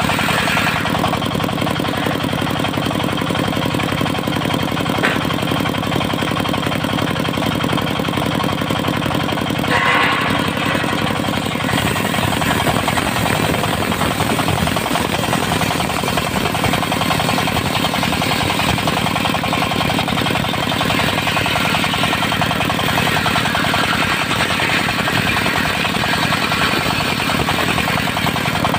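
Diesel-driven mobile circular sawmill running steadily, its engine working as the blade saws through dry teak. There is a brief louder swell about ten seconds in.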